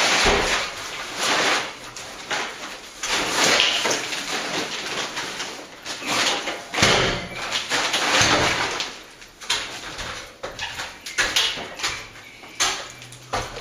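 Aluminium stepladder being opened and shifted into place, with irregular scraping, rustling and knocking throughout and a few sharper knocks.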